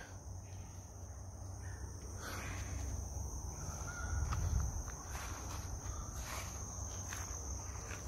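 Insects droning steadily in the scrub, one high thin tone that does not change, with a low rumble underneath.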